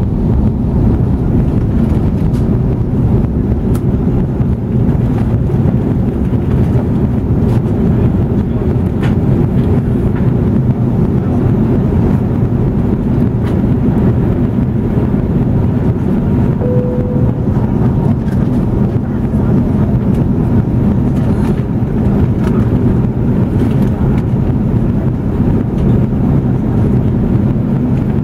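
Jet airliner in flight heard from inside the cabin: a steady, loud rumble of engine and airflow noise. A short beep sounds about two-thirds of the way through.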